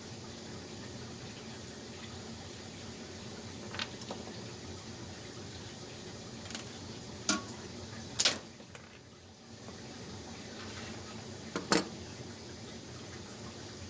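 Several short, sharp metallic clinks of hand tools and parts being handled, about five in all, the loudest a little past eight seconds and near twelve seconds in. Under them runs a steady background hiss.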